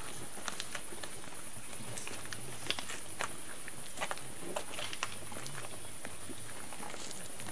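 Footsteps of people walking slowly in a group, heard as irregular scuffs and clicks, over a steady high hiss and a faint low murmur.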